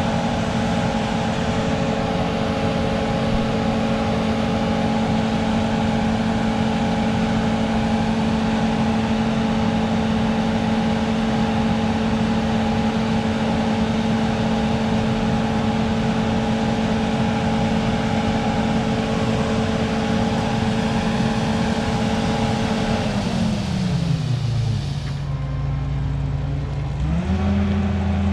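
John Deere 9780i CTS combine's diesel engine and drives running steadily at high revs with a constant whine while it unloads corn into a grain cart. Near the end the pitch falls as the machine winds down, then a deeper, steady engine note picks up.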